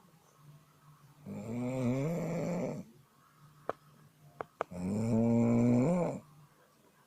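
Tuneful snoring: two long snores, each about a second and a half, with a pitch that wavers and bends like a hummed tone, about three seconds apart. A few short clicks fall between them.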